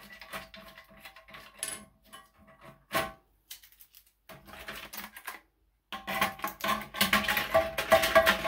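Plastic toilet fill-valve parts clicking and rattling against the ceramic cistern as they are handled. There is a sharper knock about three seconds in and a busier clatter over the last two seconds.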